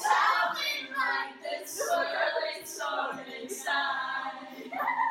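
A group of young, mostly female voices singing together unaccompanied, in a series of held notes with short breaks between them.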